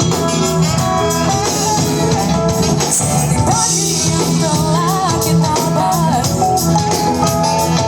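A band playing: a singer over guitar and drum kit, with a melody line weaving up and down in the middle.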